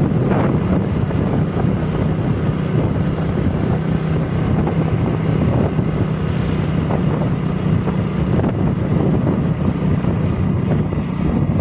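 Putri Luragung intercity bus's diesel engine running with its 'ngorok' exhaust: a steady, low, snoring drone.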